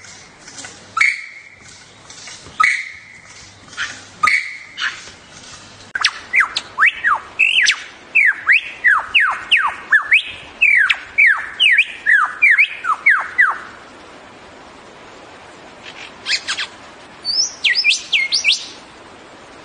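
Superb lyrebird singing: sharp repeated calls about every second and a half, then a fast run of loud, clear falling whistles, and a few high notes near the end.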